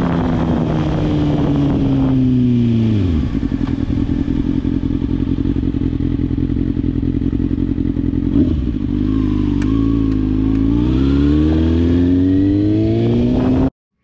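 2009 Kawasaki ZX-6R inline-four engine heard from the rider's seat on a road ride. Its pitch falls as the throttle is rolled off about three seconds in and stays low for several seconds, then rises steadily as the bike accelerates before the sound cuts off abruptly near the end.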